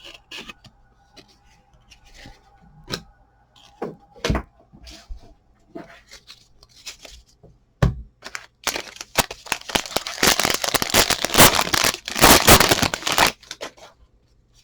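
Light handling clicks and rustles, then from about nine seconds in a loud stretch of crinkling and tearing as a trading card pack wrapper is ripped open.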